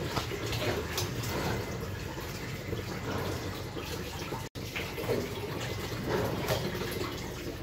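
Steady hiss and low rumble of a gas stove burner under a cast-iron tawa while rotis cook. The sound cuts out for an instant about halfway.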